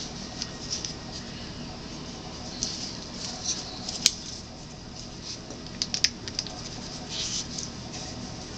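Plastic squeeze bottles of acrylic paint and gloved hands being handled: soft rustles and small clicks, with a sharp click about four seconds in and a quick cluster of clicks around six seconds, over a steady low room hum.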